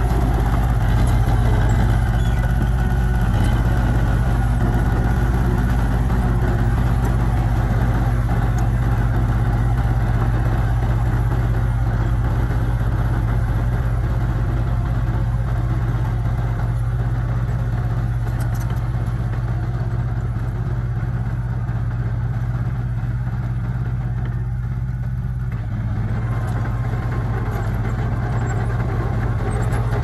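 Small Komatsu crawler bulldozer's diesel engine running steadily as it pushes soil. It eases briefly near the end and then picks up again.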